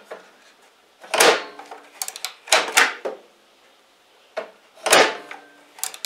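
Microwave oven door being shut and pulled open again and again, its plastic latch hooks clacking against the door interlock in three or four bursts. This is a test of a repaired door latch, shimmed with folded paper, to see whether it catches and holds.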